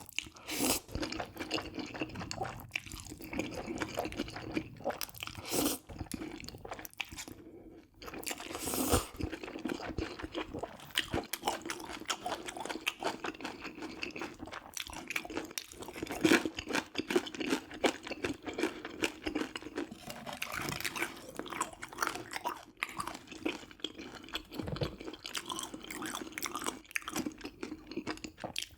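Close-miked chewing: a person eating with wet crunching and crackly bites in an irregular stream, with a short pause about a third of the way in.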